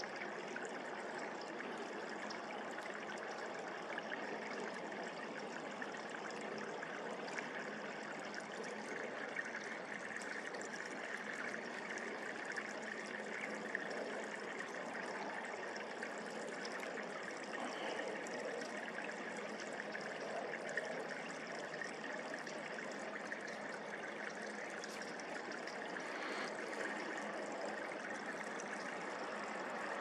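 Steady rushing of flowing water: an even hiss that holds with no distinct events.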